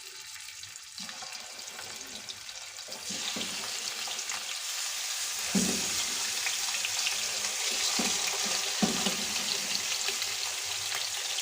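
Chicken wing drumettes frying in hot olive oil in a pot: a steady sizzle that grows clearly louder about three seconds in as the pieces go into the oil, with a few short knocks later on.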